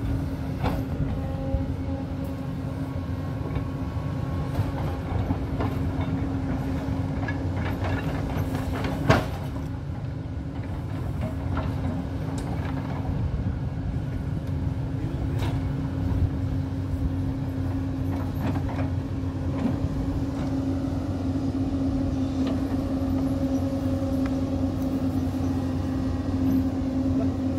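Hyundai crawler excavator's diesel engine running steadily under working load with a steady hum, while the bucket digs into the hillside. Scattered knocks and clanks; a sharp knock about nine seconds in is the loudest.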